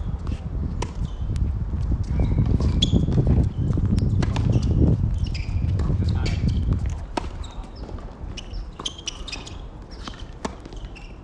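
Tennis rally on an outdoor hard court: a serve, then groundstrokes, with sharp knocks of racket strikes and ball bounces every second or two. A heavy low rumble of wind on the microphone runs through the first seven seconds or so and then eases.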